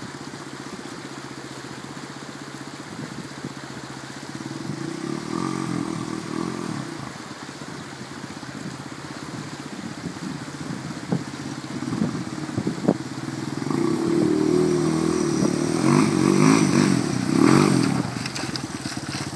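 Trail motorcycle engine running at a steady low idle, revved up twice, first about four seconds in and again more strongly from about thirteen seconds in. A few sharp knocks sound between the two revs.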